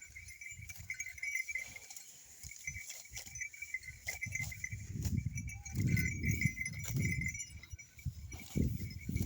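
Small ghungru bells on a working bullock jingling continuously in a fine tinkle. From about four seconds in, low rumbling sounds come and go beneath the bells.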